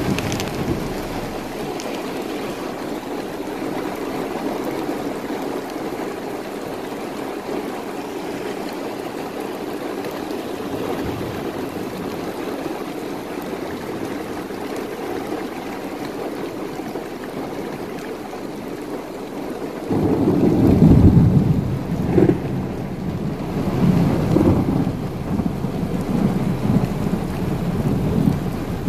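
Steady rain falling. About two-thirds of the way through, a loud rumble of thunder breaks in suddenly and rolls on in several swells.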